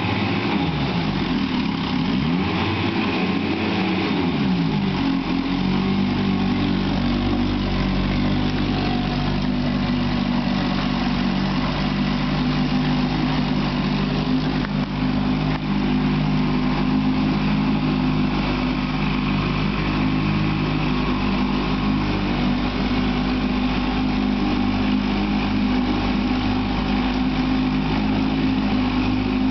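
Johnson 10 hp two-stroke outboard motor running. For the first few seconds its pitch rises and falls as the throttle is worked, then it settles into a steady run.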